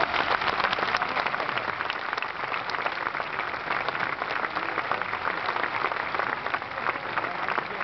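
Audience applauding at the end of an opera aria: dense, steady clapping with no let-up.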